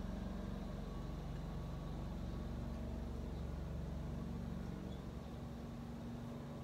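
A steady low mechanical hum and rumble, easing off slightly near the end.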